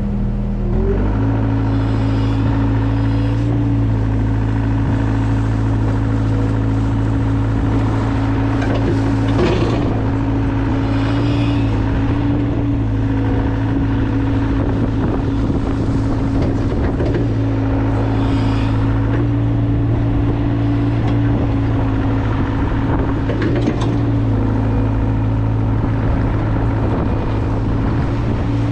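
Mini excavator's diesel engine running under steady throttle, speeding up about a second in and then holding even, with a few knocks from the machine working.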